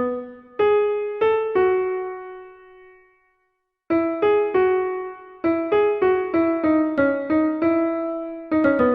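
Background music: a piano-style keyboard melody of single struck notes that fade out, dying away about three seconds in. After a short silence the melody starts again with quicker notes.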